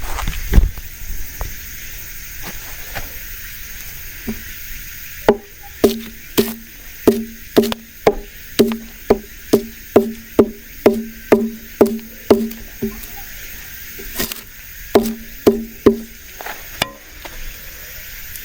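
Repeated knocking on wood, about two blows a second, each with a short ring. It runs for some eight seconds, stops briefly, then goes on for a few more blows.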